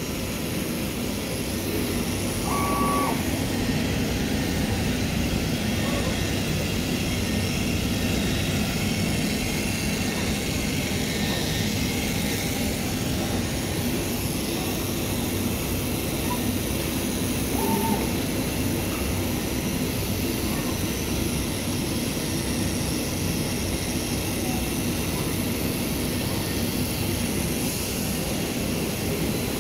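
IECHO BK3 digital cutting machine running as its cutting head contour-cuts printed fabric: a steady mechanical hum and rush, with a brief high tone about three seconds in and another near eighteen seconds.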